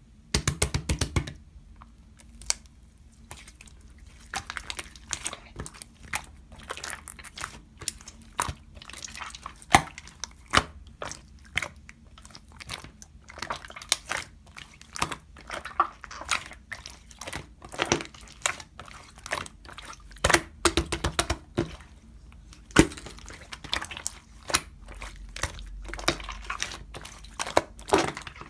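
Hands squishing and stretching slime, giving a dense, irregular run of sharp sticky clicks, pops and crackles.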